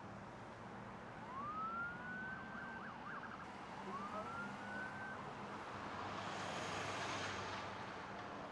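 Emergency vehicle siren sounding twice, each time rising in pitch and then holding, over steady road traffic. Near the end, traffic noise swells as a vehicle passes.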